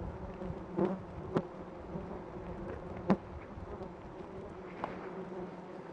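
A swarm of black flies and mosquitoes buzzing steadily around a person, broken by a few short, sharp ticks.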